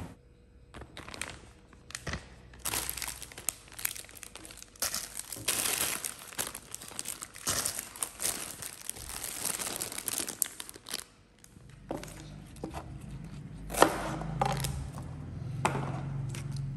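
Plastic produce bags crinkling and rustling as they are handled, busiest over the first ten seconds or so. Later come a few sharp knocks on the counter, the loudest about fourteen seconds in.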